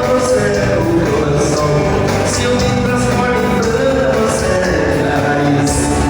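Live dance music from a band, with singing and a regular beat.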